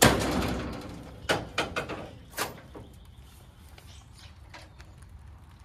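A sudden burst of rustling noise that fades over about a second, then a quick run of sharp clicks and clunks as the lawn-tractor UTV's levers and parts are handled.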